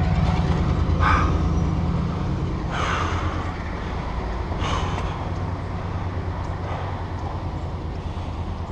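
A vehicle engine idling nearby, a steady low hum that slowly fades. Three short harsh calls break in at about one, three and five seconds in.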